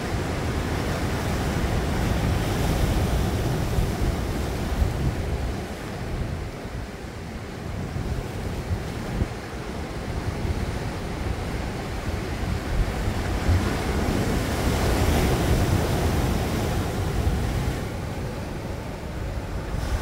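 Sea waves breaking and washing onto a rocky shore, the surf swelling and easing every few seconds, with wind rumbling on the microphone.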